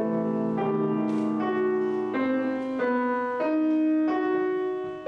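Grand piano played slowly: a melody of single notes about every two-thirds of a second over held lower notes.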